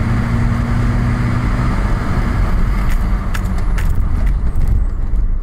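VW Passat 1.9 TDI four-cylinder diesel on its launch-control rev limiter: a steady drone that gives way after under two seconds to a loud rough engine rumble, with a few sharp cracks around three to four seconds in.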